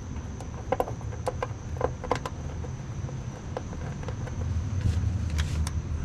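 Scattered light clicks and taps of hands handling a battery cable and plastic cable clips, over a steady low rumble.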